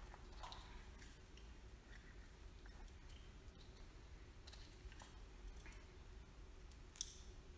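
Faint clicks and rustles of hands handling wiring connectors on a small quad bike, with one sharper click about seven seconds in. The engine is not running.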